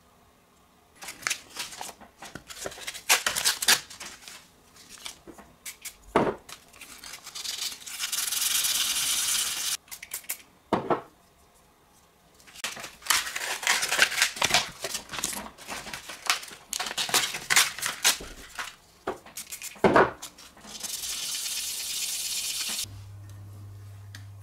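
Rubbing and handling of a small clear watch crystal between finger-cot-covered fingers and against a paper towel: bursts of scratchy rubbing and clicks, a few dull knocks, and two steady hisses about two seconds long.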